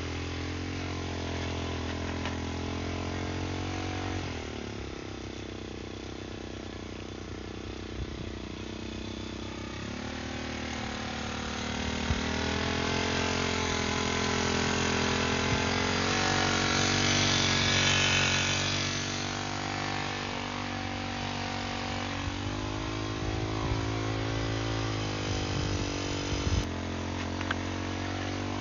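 Brush cutter engine running under load while its mixing-wheel attachment churns cement and gravel. Its pitch rises and dips as the load changes, it is loudest a little past the middle, and a few sharp clicks come through.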